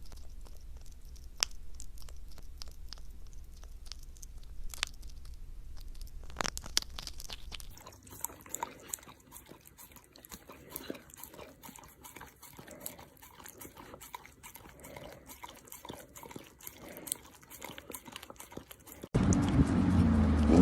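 An animal chewing and crunching, with many short, crisp crunches scattered irregularly. Near the end a much louder, fuller sound cuts in.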